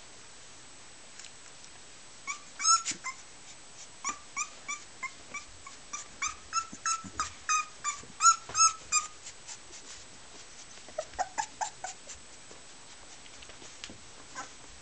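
A young Boxer puppy whimpering and squealing in a quick run of short, high-pitched cries, about three a second, then a few lower whines near the end.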